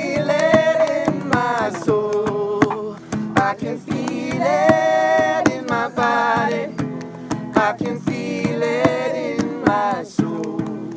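Acoustic guitar strummed in a lively rhythm while voices sing along, with long held notes, and hands clap to the beat.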